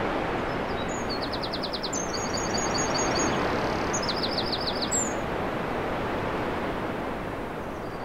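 Outdoor ambience: small birds chirping over a steady rushing noise. A quick run of high notes comes about a second in, and another around four seconds.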